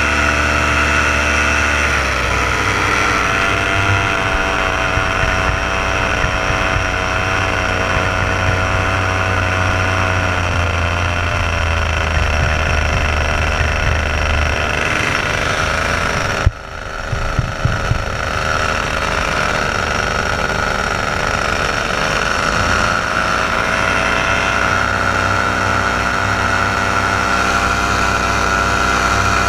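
Paramotor engine and propeller running steadily in flight, the engine note shifting slightly a few times with throttle. The sound is briefly interrupted by a sudden drop and a few crackles about halfway through.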